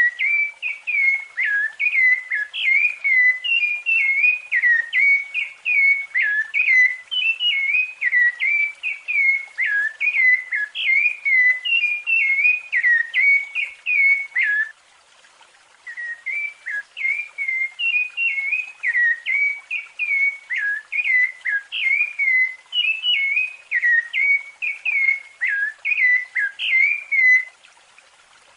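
Rufous-bellied thrush (sabiá-laranjeira) singing its fluted song: a fast, continuous run of short clear whistled notes sliding up and down. The song breaks off for about a second halfway through and again near the end.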